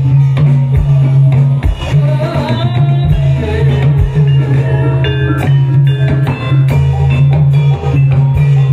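Live jathilan accompaniment music in the blendrongan style, played loud. Drums strike over a heavy, steady bass, with melodic pitched instruments above.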